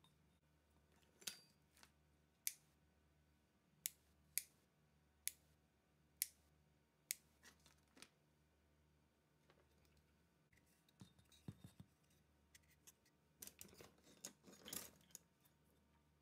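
About eight sharp clicks, roughly a second apart, from small lamp-wiring parts being handled, such as lever wire connectors snapping shut. A few seconds of rustling and scraping handling noise follow.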